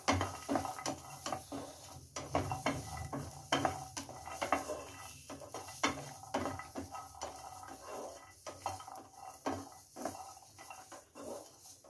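Wooden spatula stirring and scraping peeled garlic cloves around a nonstick frying pan, the cloves lightly roasting to take away their raw taste. Irregular clicks and scrapes, about two or three a second, as the cloves tumble against the pan.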